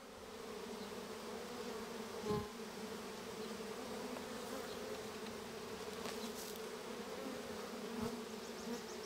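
Steady hum of a honeybee swarm massed on the ground at the entrance of a new nuc hive, the bees moving in to take it as their home. A couple of soft bumps about two seconds in and near the end.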